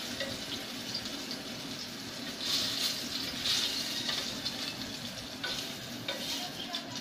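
Eggplant pieces frying in hot oil in a nonstick pan, a steady sizzle that swells louder a few times as pieces are turned and lifted out with tongs.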